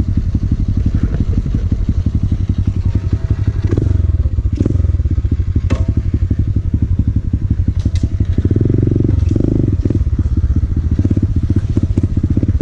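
Motorcycle engine running as it is ridden, the engine note rising and easing with the throttle, with a few sharp knocks in the middle.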